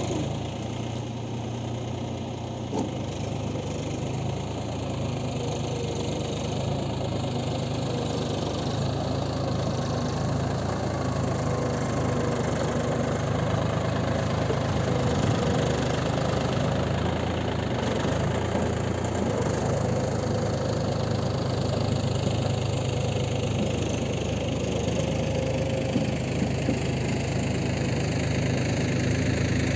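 Mahindra 275 DI tractor's three-cylinder diesel engine running steadily as the tractor works through a flooded paddy field on cage wheels. It grows a little louder after the first few seconds.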